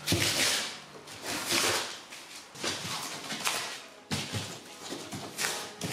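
Hand scraper chipping and scraping hardened filler off a car body in repeated rasping strokes, about one a second, with a few sharp knocks in between.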